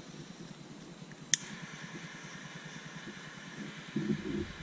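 A low, steady hum throughout, with one sharp click a little over a second in, then rustling and light knocking as wiring and a connector are handled near the end.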